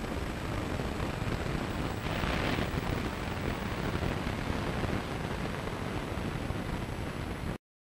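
Steady rushing noise on the FPV Easystar's in-flight audio feed, briefly louder and brighter about two seconds in, then cutting off abruptly near the end.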